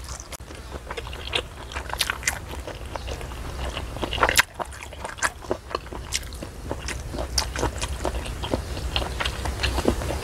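Close-miked eating of mixed noodles with conch meat: a steady run of wet chewing and biting clicks and small crunches, with a few scrapes, the sharpest about four seconds in.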